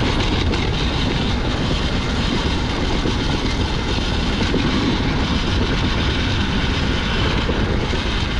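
Enduro motorcycle engine running steadily as it is ridden along the trail, heard up close.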